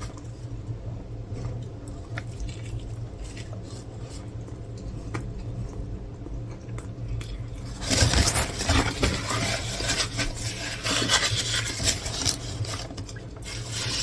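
Close-up handling noises at a table while eating: a steady low hum with a few light clicks. Then, about eight seconds in, several seconds of loud, dense crackling and scraping.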